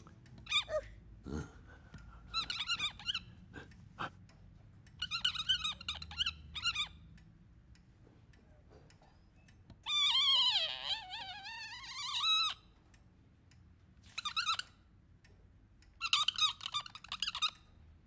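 High, wavering squeaky tones in short runs, each with a fast wobble. The longest comes about ten seconds in and dips, then rises again. A few light clicks fall between them.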